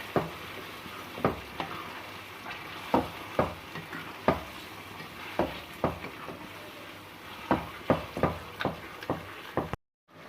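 Chicken frying with sizzling in a karahi while a spoon stirs and mixes, knocking against the pan about fifteen times at irregular intervals over a steady frying hiss. The sound cuts out briefly near the end.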